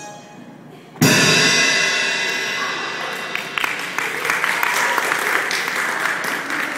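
A final loud hit on a Pearl drum kit about a second in, its crash cymbals ringing and slowly dying away. About three seconds in, applause starts and carries on over the fading ring.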